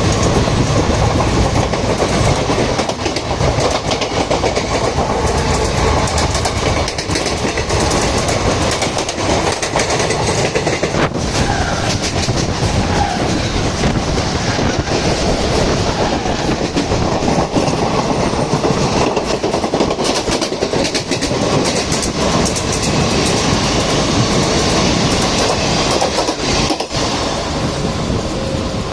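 Passenger train running at speed: a steady, loud rumble with wheels clattering over the rail joints.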